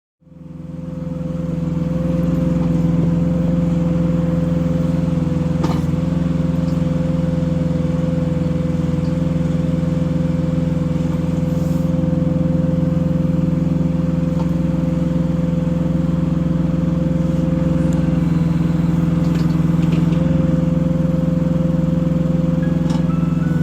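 Sunward SWE08B micro excavator's Yanmar diesel engine running at a steady speed, fading in at the start and then holding one even pitch.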